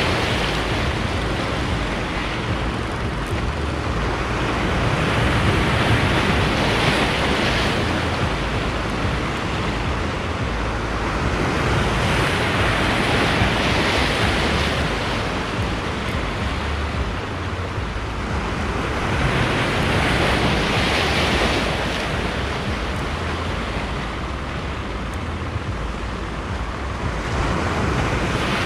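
Sea waves breaking and washing over shoreline rocks: a continuous surf wash that swells each time a wave breaks, every several seconds.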